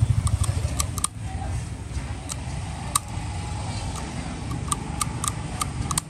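Small metal clicks, about a dozen at uneven intervals, some with a short ring, from a 1930s Ronson Tuxedo cigarette-case lighter being worked by hand. A steady low rumble runs underneath, loudest in the first second.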